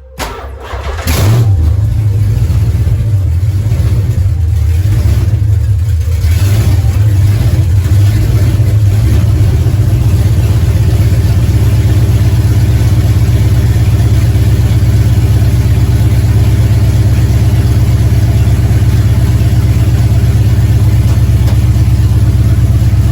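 LS1 5.7-litre V8 cranking and catching about a second in, then running loud and steady with a couple of early blips of the throttle. It is exhausting straight out of long-tube headers with no exhaust system attached.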